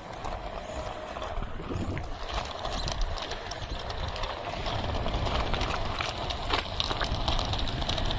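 Outdoor city-square ambience: a steady low rumble with scattered light clicks and taps over it.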